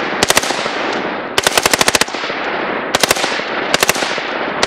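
AR-15 semi-automatic rifle bump-fired from the hip by belt-loop method, its recoil making it fire in rapid full-auto-like bursts. About five short bursts of roughly three to eight shots, the longest about a second and a half in, each shot ringing out with a long echo.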